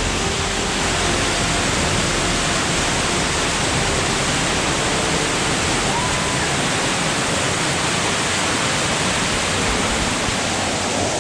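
Waterfall pouring in a rock gorge: a loud, steady rush of falling water.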